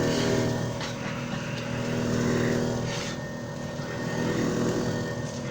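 JFJ Easy Pro disc repair machine running a one-minute resurfacing cycle: a steady motor hum with a few light ticks.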